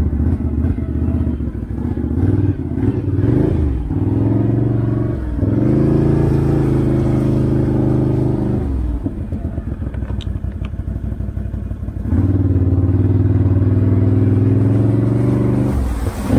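A 2021 Can-Am Outlander 650 ATV's V-twin engine running loud through an aftermarket Straightline Performance exhaust while being ridden. It revs up and eases off again and again: it climbs and is held at high revs for a few seconds, drops back, then is pulled up and held again before falling off near the end. The owner finds this exhaust far too loud.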